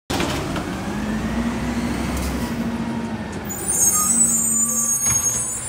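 Garbage truck's engine running steadily as it drives slowly up the street, getting louder in the second half, with a high hiss of air from its air brakes about halfway through.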